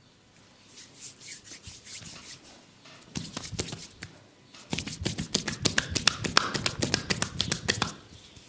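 Hands striking skin in a percussive massage, quick slapping taps: a few faint taps, a short run of sharper strikes about a third of the way in, then a dense fast run of about ten strikes a second through the second half that stops shortly before the end.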